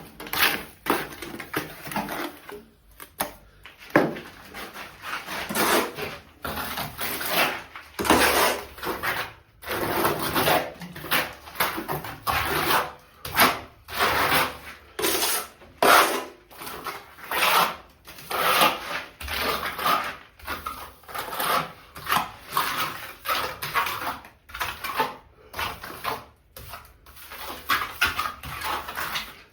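Construction hand work: a run of rough, rasping strokes, about one or two a second, with short pauses between them.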